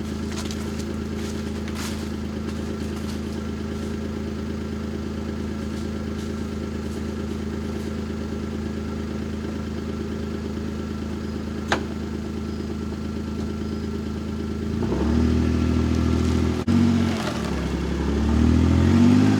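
Kawasaki Mule utility vehicle's engine idling steadily, then revving up twice under load near the end, with a short break between. There is a single sharp click about 12 seconds in.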